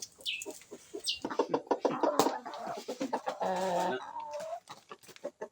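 Chickens clucking and squawking, loudest from about a second in until about four seconds in.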